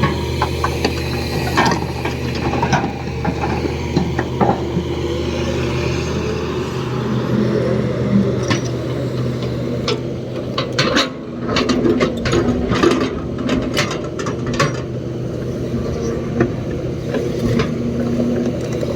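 Excavator diesel engine running steadily, with a run of sharp metallic clanks and knocks about halfway through.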